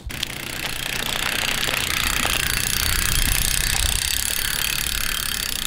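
Loud, steady, dense noise, hissing across the whole range with a low rumble beneath it, starting abruptly and holding for several seconds: an intro sound effect under the title card.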